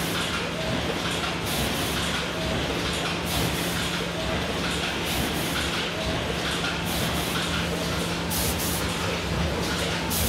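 Stitched-brochure finishing line running: a Theisen & Bonitz TB flex S 204 automatic collator feeding a palamides gamma502pro. It makes a steady mechanical clatter over a constant hum, with a cycle that repeats about every two seconds.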